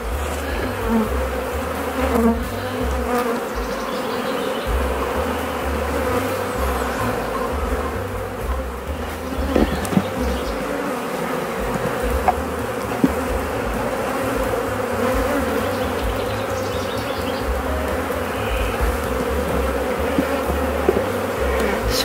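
Honeybees buzzing steadily in a loud, unbroken hum around an opened hive, with a few light clicks.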